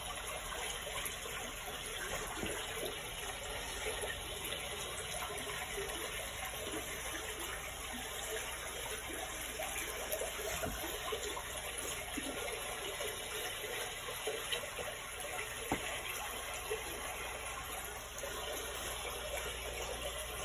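A steady rushing noise with a few faint ticks in it.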